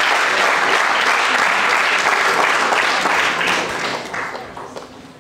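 Audience applauding in a hall, a steady dense clapping that dies away about four seconds in.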